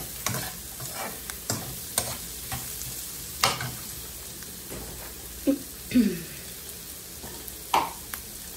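Chicken gizzards and green chilies sizzling in a nonstick wok, a steady frying hiss. A metal spatula scrapes and clinks against the pan for the first three seconds or so of stirring, then only a few scattered sharp knocks sound over the sizzle.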